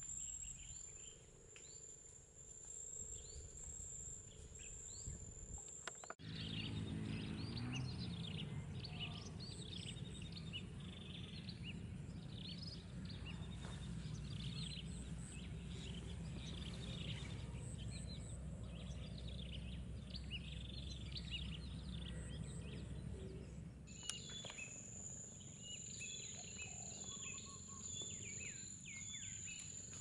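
Insect trill, steady and high-pitched, which stops abruptly about six seconds in. Then many birds chirp busily over a low rumble. Near the end the rumble drops away and the insect trill returns, with a few chirps.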